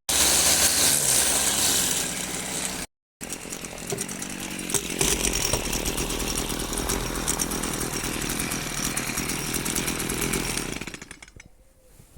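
Two-stroke gasoline string trimmer running at speed and cutting grass, with the sound breaking off briefly once and then dying away near the end.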